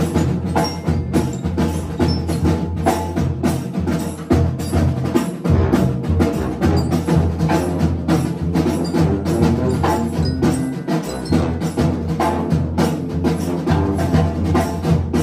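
A band of brass and saxophones playing a tune, with percussion keeping a steady beat of sharp strokes, about two to three a second.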